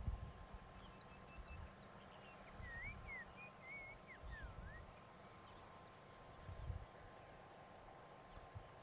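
Quiet bush ambience with a bird singing a short run of whistled notes that swoop up and down, about three seconds in, and fainter high chirps around it.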